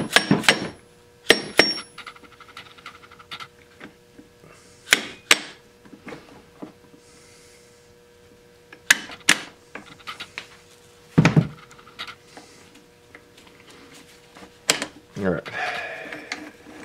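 Steel gears, shafts and shift forks of a Polaris Magnum 500 ATV transmission clinking and knocking against each other and the aluminium case as the gear cluster is worked into place by hand. The knocks come singly and irregularly, some with a brief metallic ring.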